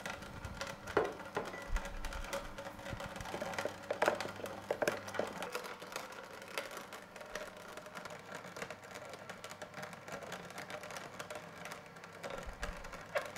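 Sana 707 horizontal slow masticating juicer running, its auger grinding blended rose hip puree: a steady motor hum with irregular crackling from the finely ground seeds. A few knocks about one second in and around four seconds in.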